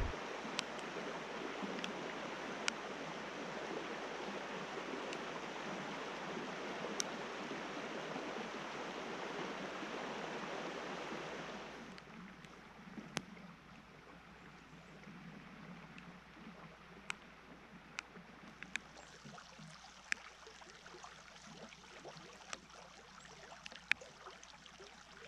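Steady rush of stream water flowing over a shallow rocky riffle. About halfway through it drops to a quieter flow, with scattered sharp ticks.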